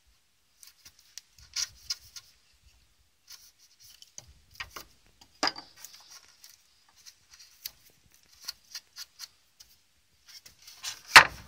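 Steel wood chisel scraping and paring at a block of pressure-treated wood: scattered short, high scraping strokes and clicks, with a sharp knock about five seconds in and a louder one near the end.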